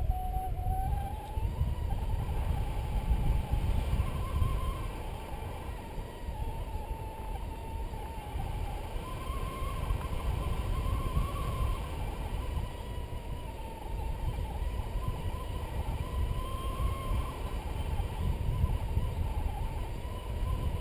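Wind rushing over the microphone in flight. Over it, a paragliding variometer gives one continuous tone that drifts slowly up and down in pitch as it tracks the rise and sink of the air.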